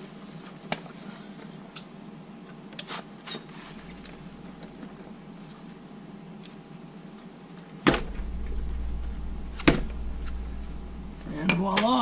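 Breaker bar on a 46 mm socket being struck to break loose a motorcycle's tight rear axle nut: a few light metallic clicks as the bar is set, then two sharp whacks about two seconds apart, with a low rumble beneath them.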